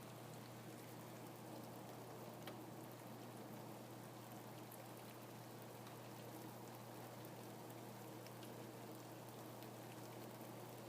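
Faint steady rain, a soft hiss with scattered individual drops ticking through it.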